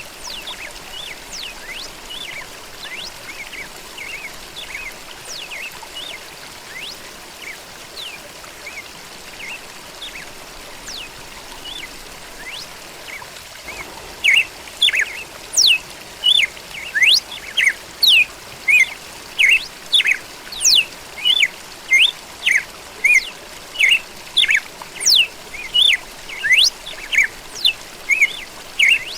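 Birds chirping over the soft, steady trickle of flowing water. About halfway through, one bird close by starts repeating a loud, sharp chirp about every two-thirds of a second.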